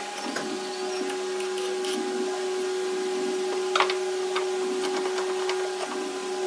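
A small motor humming steadily, with a few light clicks and taps over it, the sharpest nearly four seconds in.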